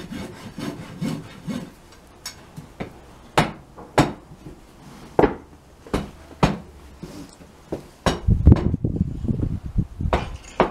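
Hoof rasp filing a horse's hoof in short strokes, followed by a series of sharp knocks on wood, with heavier low thudding about eight seconds in.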